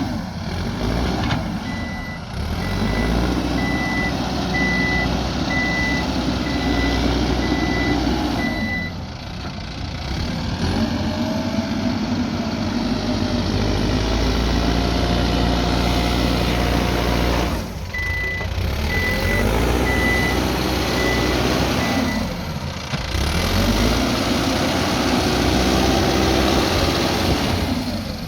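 Backhoe loader's diesel engine running steadily while working, with its reversing alarm beeping evenly in two spells.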